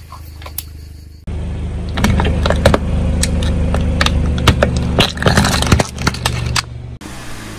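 Car tyre rolling slowly over plastic jars of slime, the plastic cases cracking and crunching in many sharp snaps over a steady low hum. It starts abruptly about a second in and stops suddenly near the end.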